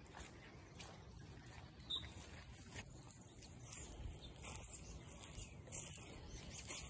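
Faint footsteps on wet grass and leaf litter, a few soft irregular steps with a slightly sharper one about two seconds in.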